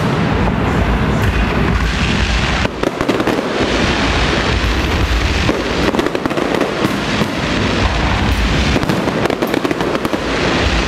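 Aerial fireworks show: a dense, continuous barrage of shell bursts and crackling, with many rapid pops and bangs overlapping throughout.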